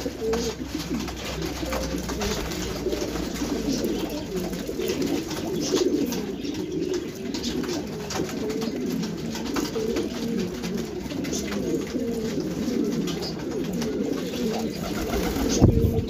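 A crowd of domestic pigeons cooing together in a dense, overlapping, wavering coo, with scattered small clicks and knocks. A brief low thump comes near the end.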